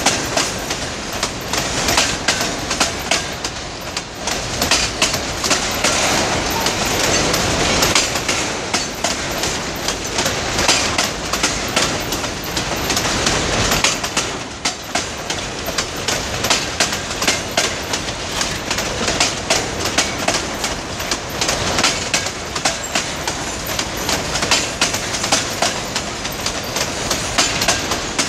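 Freight train wagons rolling steadily past, with wheels clicking and clattering over the rail joints in a continuous stream of sharp clicks over a rolling rumble.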